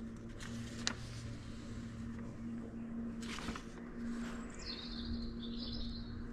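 Paper instruction leaflet being handled and its pages turned, with two short rustles. A bird chirps and warbles briefly near the end, over a faint steady hum.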